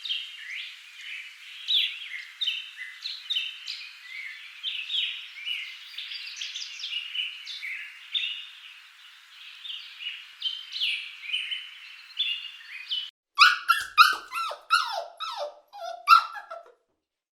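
Animal calls: a busy run of many short, high chirps, then about thirteen seconds in, louder separate yelping calls that slide down in pitch and stop a little before the end.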